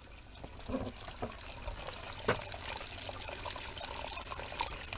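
A thin stream of water trickling and splashing onto the plastic grate of a newly installed kitchen drain gully, testing that it drains; a single knock about two seconds in.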